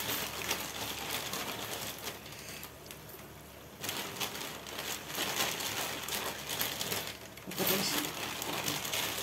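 Chicken pieces sizzling and crackling in an aluminium pot on a gas burner, growing louder about four seconds in.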